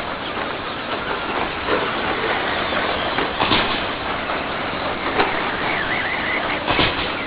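Electric RC short course trucks racing on a dirt track: a steady hiss of motors and tyres with a few sharp clatters of trucks landing or hitting each other, and a short wavering motor whine about six seconds in.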